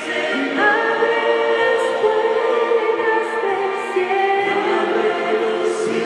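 Worship team choir singing a worship song, several voices holding long notes together, moving to new notes about half a second in and again near the end.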